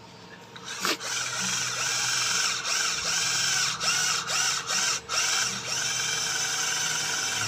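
BONKYO cordless battery drill running under load as its bit grinds against a 5 mm steel plate, starting about a second in and cutting out briefly several times along the way. The drill is not strong enough to get through plate this thick.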